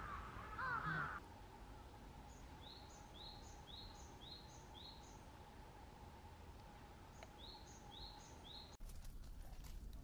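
A crow cawing loudly in the first second. Then a small bird gives a short high call again and again, about one and a half a second: six calls, a pause, then three more. A faint steady hum lies under the calls.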